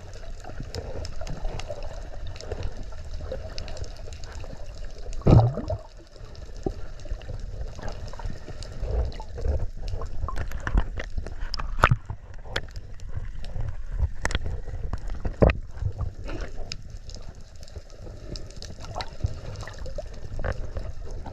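Sea water sloshing and gurgling around a GoPro camera, with scattered sharp clicks and knocks throughout. A louder knock comes about five seconds in.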